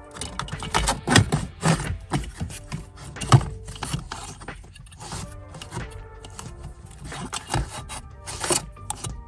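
Background music over a run of clicks, knocks and scrapes from parts and tools being handled while the heater blower motor is reinstalled, with one sharp knock about three seconds in.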